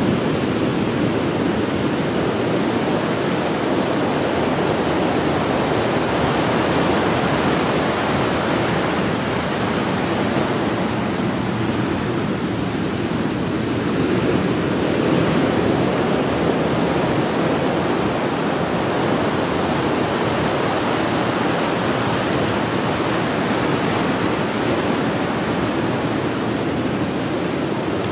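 Heavy ocean surf after a storm, breaking and washing in over a rocky, cobbled shore: a steady rush of foaming water that swells a little about halfway through.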